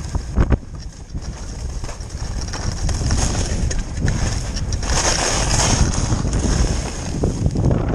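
Wind buffeting the microphone of a skier going downhill, over the hiss and scrape of skis on packed snow. A couple of knocks near the start, and a louder stretch of scraping about five seconds in.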